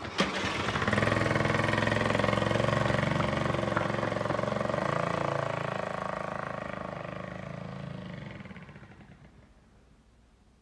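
A Honda 70 pit bike's small single-cylinder four-stroke engine, running on a freshly rebuilt top end with a new piston. It comes up loud about a second in as the bike rides off, then fades away over the last few seconds.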